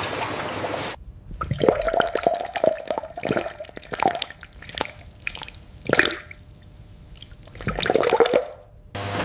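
Steady machine noise that cuts off about a second in, followed by liquid splashing and dripping in irregular bursts, with sharp clicks.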